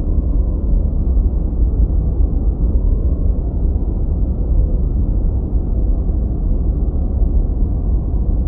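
Steady, deep rumbling drone with a faint held tone above it, unchanging throughout: an ambient sound bed.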